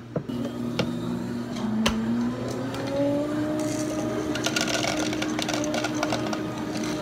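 Small electric motor humming, rising slowly in pitch over the first few seconds and then holding steady. A few sharp clicks come in the first two seconds, and over the last few seconds a crackly rattle joins it as tapioca pearls are tipped into a plastic cup.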